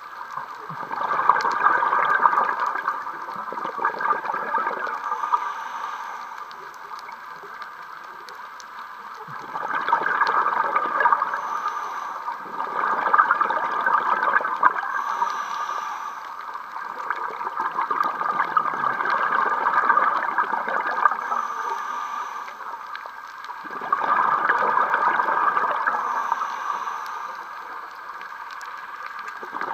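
Scuba regulator breathing underwater: exhaled bubbles gurgle out in bursts of a few seconds, repeating every few seconds, with a short faint hiss of the next inhalation between bursts.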